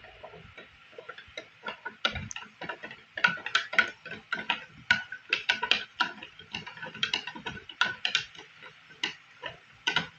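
A metal spoon stirring coffee in a cup, clinking repeatedly and irregularly against the cup's side, a few clinks a second.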